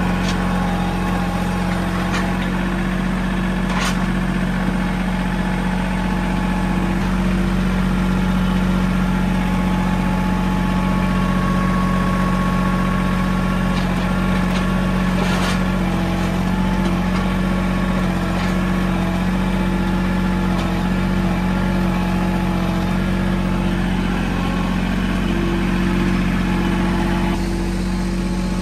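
Mahindra 1626 compact tractor's three-cylinder diesel engine running at a steady speed, with a couple of brief clicks along the way.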